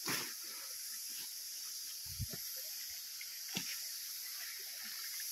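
Steady high hiss of outdoor ambience in thick undergrowth, with a few faint rustles and knocks from movement through the plants: one near the start, one about two seconds in and one about three and a half seconds in.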